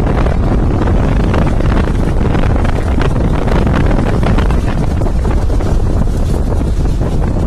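Heavy wind buffeting the microphone on a moving Jeep: a loud, steady rumble and hiss.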